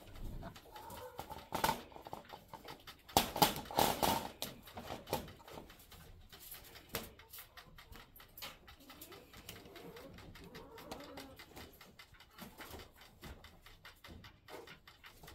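Rattling and clattering of a wire rabbit cage as a hand reaches in and young rabbits move about on the wire floor, loudest in a cluster a few seconds in. Faint bird calls sound in the background.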